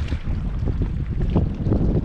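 Strong wind buffeting the microphone: a loud, gusty rumble.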